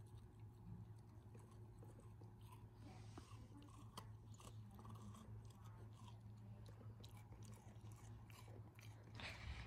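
Alaskan malamute puppy gnawing a frozen carrot: faint, irregular crunching and chewing clicks, a little louder near the end.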